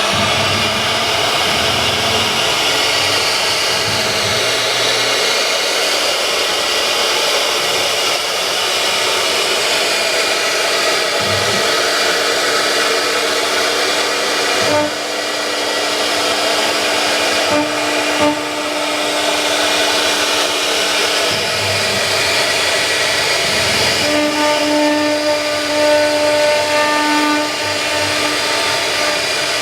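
Wood CNC router running a carving job: a steady, loud hiss of the spindle and cutter in the wood. A few steady pitched tones come and go, strongest in the last few seconds.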